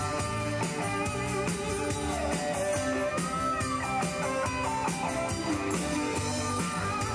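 Live rock band playing: drum kit keeping a steady beat under bass and guitars, with a melodic line over the top.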